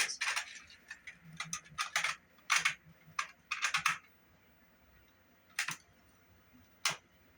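Sharp plastic clicks and clacks from handling a cassette Walkman and tape, a quick run of them over the first few seconds, then two single clicks later on.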